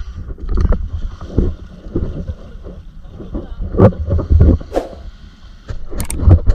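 Water splashing and sloshing as men wade through shallow sea water pushing a wooden outrigger boat, with irregular knocks and wind buffeting the action camera's microphone. About six seconds in come a few sharp clicks from a subscribe-button sound effect.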